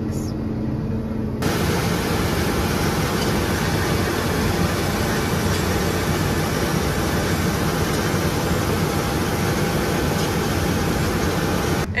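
Heavy harvest machinery running: a tractor's steady engine drone inside the cab with a low hum, then, cutting in about a second and a half in, a louder, dense rush of engine and machinery noise from the combine and grain cart during unloading.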